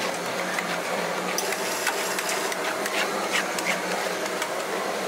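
Metal spatulas scraping and tapping on the stainless steel cold plate of a rolled ice cream stand, in short, irregularly spaced strokes over a steady low machine hum.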